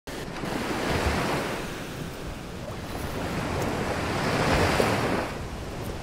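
Ocean surf breaking on a sandy beach, a steady wash that swells twice, with wind buffeting the microphone.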